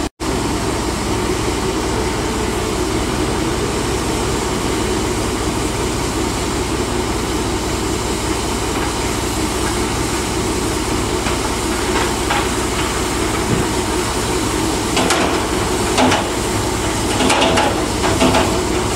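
Steady hiss of escaping steam from a standing BR Standard Class 4 4-6-0 steam locomotive. In the last several seconds, knocks and clattering come from coal being tipped from a loader's bucket into the tender.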